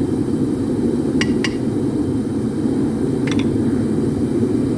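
A forge running with a steady low rushing noise as the rebar heats. Light metallic clinks cut through it, two in quick succession about a second in and one more a little past three seconds.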